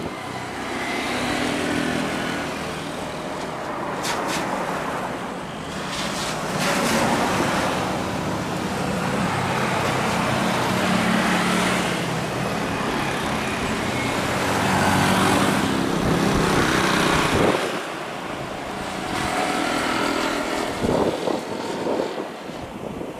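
Distant jet engine noise from a Boeing 737-800 taxiing at low thrust: a continuous rumble with a faint low hum that swells and fades several times.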